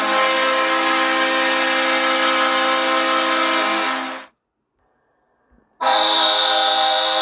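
Recorded ice hockey goal horn sounding a loud, steady note that cuts off about four seconds in. After about a second and a half of silence, a second, brighter goal horn starts.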